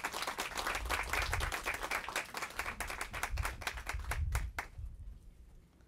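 Audience applauding, a dense patter of hand claps that thins out to a few last claps and dies away about five seconds in.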